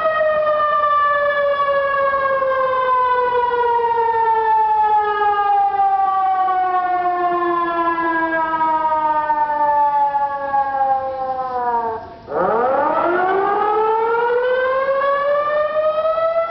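Tsunami warning siren sounding a drill wail: one loud tone whose pitch falls slowly for about twelve seconds, drops away briefly, then climbs back up over the last few seconds.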